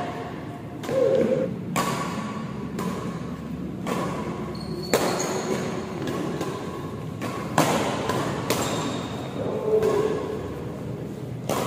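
Badminton rackets striking a shuttlecock in a fast doubles rally, a sharp crack every second or so, with a few short high squeaks between hits.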